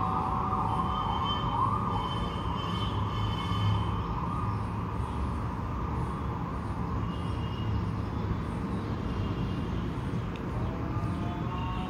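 A wavering, siren-like wailing tone over a steady low rumble, strongest in the first couple of seconds, with rising tones coming in near the end.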